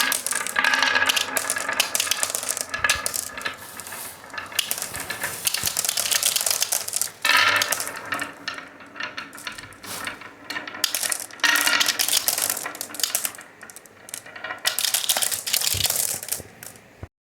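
Marbles rolling and clattering down a HABA wooden marble run, a dense stream of clicks and clacks that swells louder several times.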